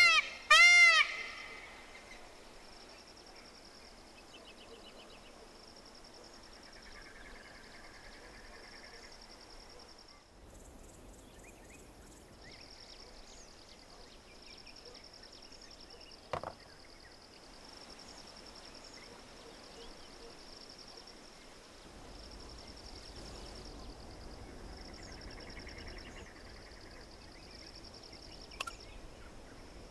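Quiet rural ambience of insects trilling in repeated pulses, with a few short bird calls. It opens with two loud, ringing bird calls less than a second apart, and there are a couple of single sharp clicks later on.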